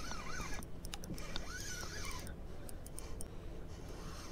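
Spinning reel being cranked to bring in a fish, a light mechanical ticking. A high warbling tone rises and falls twice over it, near the start and again about a second and a half in.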